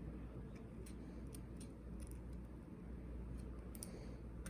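Faint, scattered small metallic clicks and scrapes of a shim being worked in around the plug of a Robur safety deposit box lock.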